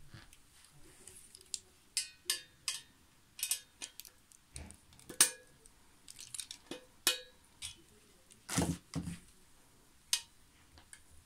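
Hand screwdriver driving a screw into the painted metal tube frame of a garden trolley: irregular sharp metallic clicks and clinks of the bit, screw and tubes knocking together, with a heavier knock about three-quarters of the way through.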